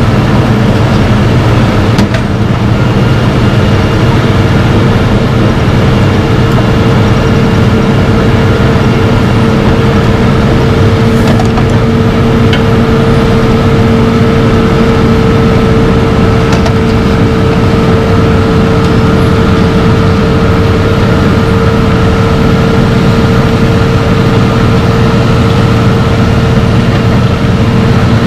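Wirtgen W1200F cold asphalt milling machine running at work, its diesel engine and cutting drum making a loud, steady drone as it grinds up the old road surface, with a steady whine over it.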